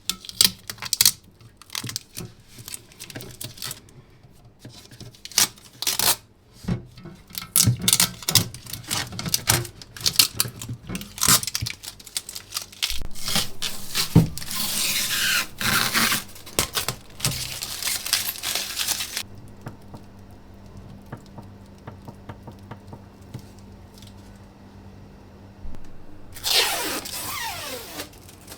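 Objects being handled at close range: a run of knocks, rustles and scrapes, a few seconds of dense rustling or tearing noise in the middle, and another short tearing-like sound near the end.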